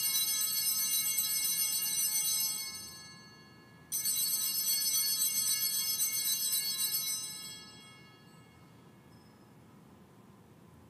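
Altar bells rung at the elevation of the chalice during the consecration at Mass, ringing high and bright. One ring is already sounding and dies away about three seconds in; a second starts about four seconds in and fades out by about eight seconds.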